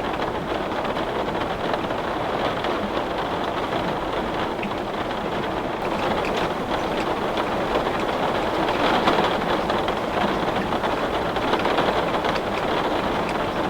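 Heavy rain on a window, a steady hiss with scattered drop ticks.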